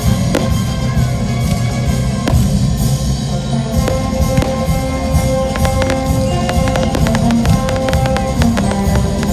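Music with drums from a fireworks show soundtrack, with many sharp, irregular cracks and pops of fireworks through it, thickening about halfway through.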